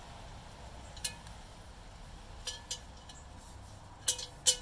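Cast iron Dutch oven and its wire bail handle clinking on a steel worktable as the pot is picked up and turned over: five short metallic clinks that ring briefly, the loudest near the end.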